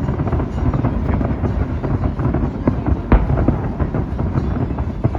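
Fireworks going off: a dense run of crackling pops over a low rumble, with one louder bang about three seconds in.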